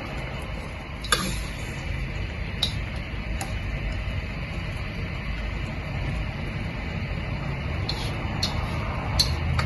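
Broth boiling in a pot with a steady low rumble, and a few light clinks of a utensil against the pot scattered through it.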